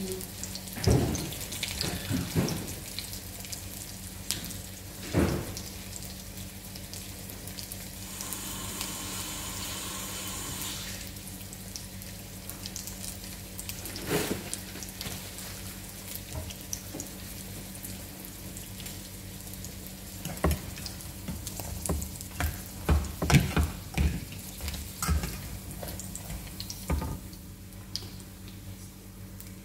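Kitchen work sounds over a steady low hum. A tap runs for about three seconds roughly a third of the way in, and items are knocked and set down on the counter, with scattered knocks early on and a busier run of clatter in the last third.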